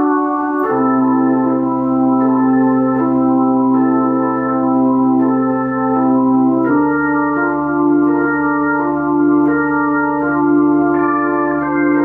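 Freshly restored Hammond C-3 organ played through a Leslie 147 rotating speaker: sustained chords over a held bass note. The bass note changes about a second in and again a little past halfway.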